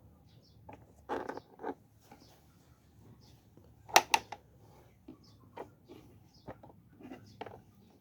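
Handling noises from a portable Bluetooth speaker and its packaging being turned over in the hands: scattered clicks and rustles, with a short rustle about a second in and a sharp double click about four seconds in.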